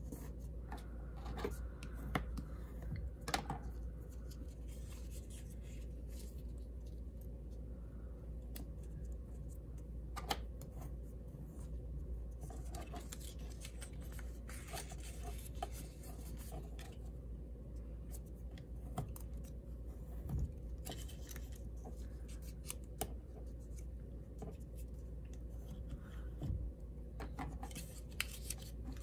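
Cardstock being folded and creased by hand, with a bone folder rubbing along the folds: irregular paper rustles and sharp crinkly taps, the loudest about three seconds in and about ten seconds in. A steady low hum runs underneath.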